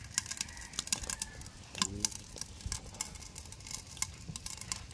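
Wood fire crackling, with many irregular sharp snaps and pops. There is a brief short voice-like sound about two seconds in.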